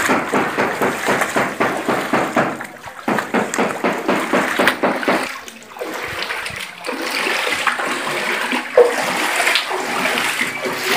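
Legs wading through knee-deep floodwater, sloshing and splashing in a quick rhythm, with a short lull a little past halfway.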